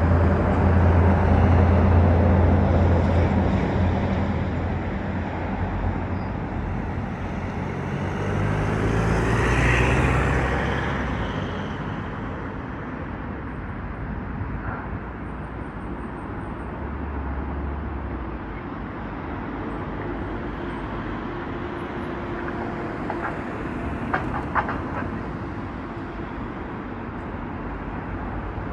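A train running, loudest with a deep engine hum over the first few seconds and then fading, with a second swell about ten seconds in before settling to a steady lower rumble.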